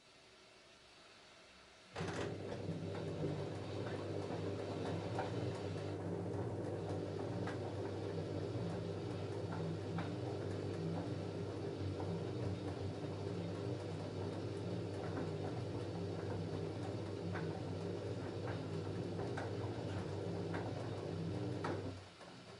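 LG F10A8HDS5 front-loading washing machine turning its drum during the wash of a denim load: a steady motor hum with a pulsing beat and scattered light clicks. It starts about two seconds in and stops suddenly near the end.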